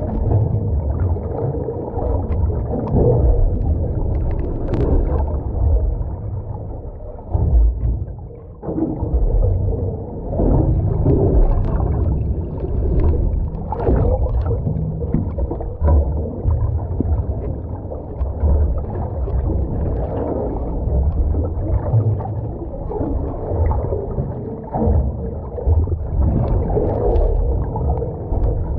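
Underwater noise heard through a camera's waterproof housing: a muffled, uneven low rumble of moving water that swells and dips.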